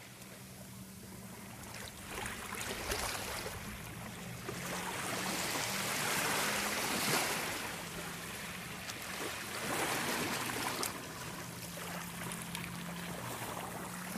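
Rushing, splashing water that swells and fades a few times, loudest about halfway through, over a low steady drone.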